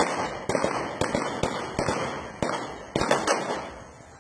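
Gunfire: about a dozen sharp shots in quick, uneven succession, each trailing into an echo. This is police firing on the attacker's truck.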